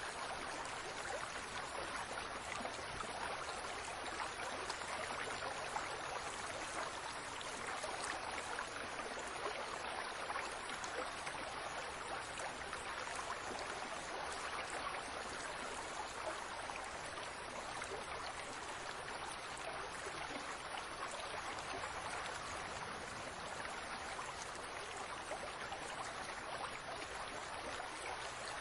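Water from a fountain splashing steadily, an even rush of water with no breaks.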